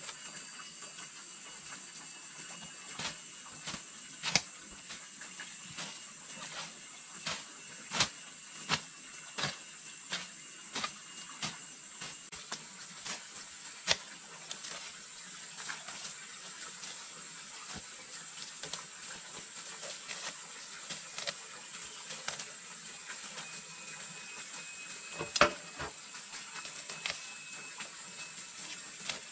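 Irregular sharp knocks and clicks, some close together and some a second or two apart, with the loudest few coming together near the end, over a steady hiss with a high thin whine.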